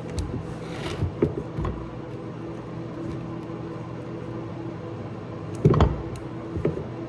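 Scattered small clicks and knocks of metal parts being handled, with a louder clunk near the end, over a steady low hum.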